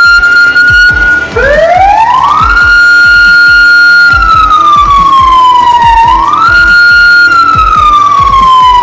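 A 200-watt CJB electronic siren sounding a wail through its speaker, loud and steady. The tone holds high, dips and climbs back up about a second in, holds, then slides slowly down. It jumps back up quickly about six seconds in and begins sliding down again near the end.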